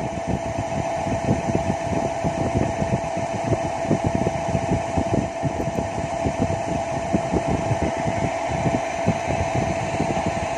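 Steady mechanical drone with a constant whine over an uneven low rumble.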